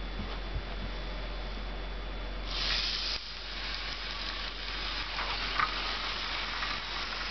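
Bachmann HO scale Santa Fe diesel model locomotive starting off about two and a half seconds in under transformer power, then running around the track with a steady high-pitched whir from its small electric motor and wheels on the rails.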